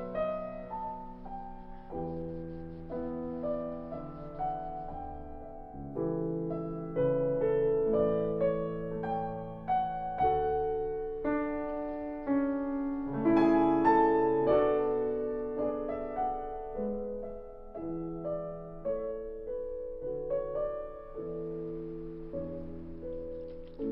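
Solo piano music: a melody of struck notes over changing chords, each note fading after it is played.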